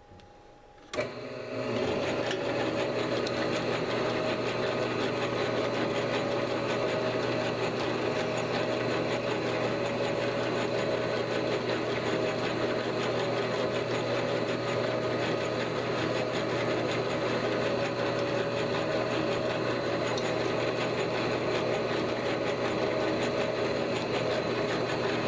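9x20 metal lathe switched on with a click about a second in, then its motor and headstock gears running with a steady hum and whine.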